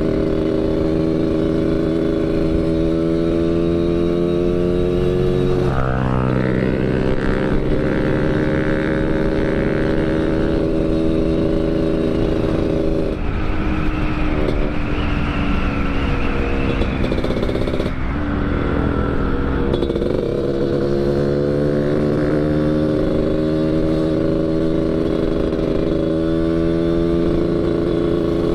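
Yamaha RX-King two-stroke single-cylinder engine breathing through an underbelly expansion-chamber exhaust, set up Medan-style for a growling 'ngorok' note, pulling along on the road. The revs rise about six seconds in, the sound turns rougher and noisier in the middle, and the revs climb again near the end.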